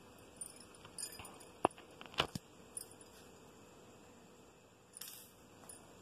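A few light clicks and taps of small objects being handled, with a sharper knock about one and a half seconds in and another pair just after two seconds.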